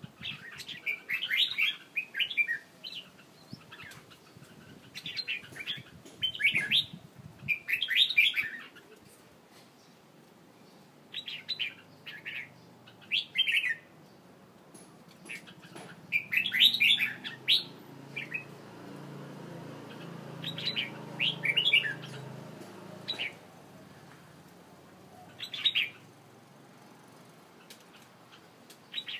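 Caged songbird singing in short bursts of quick, chirpy notes, each phrase lasting one to two seconds and separated by pauses of a few seconds.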